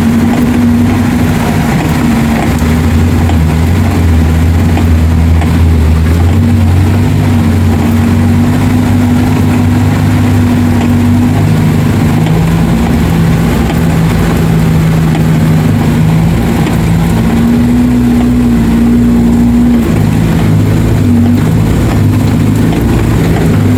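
Off-road 4x4's engine running steadily, its pitch stepping up and down a few times as the throttle changes.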